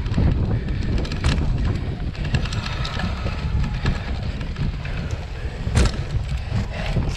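Wind buffeting the microphone of a camera riding on a cyclocross bike as it goes over a bumpy dirt course. The bike and tyres rattle and click, with two sharp knocks, about a second in and again near the end.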